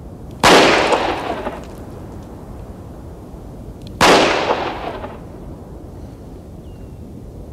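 Two revolver shots about three and a half seconds apart, each a sharp crack followed by an echo that dies away over about a second.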